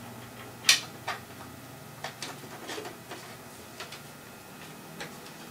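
A USB cable and its connector being handled and fed through a computer case: one sharp click about 0.7 s in, then a scatter of lighter taps and rattles, over a faint steady low hum.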